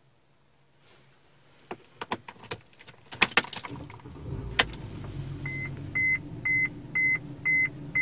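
Mercedes-Benz W212 E-Class restarted from cold: clicks of the key and ignition, then the starter cranks about three seconds in and the engine catches and settles into a fast cold idle just over 1000 rpm. From about halfway, a dashboard warning chime beeps about twice a second, louder than the engine.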